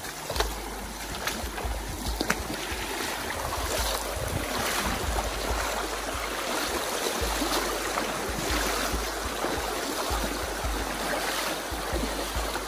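Steady rush of stream water, with low wind rumble on the microphone coming and going.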